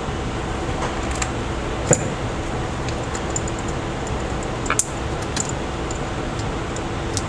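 Small clicks and taps of tools and parts while a smartphone is being taken apart, the two loudest about two seconds in and near five seconds, over a steady fan-like hum.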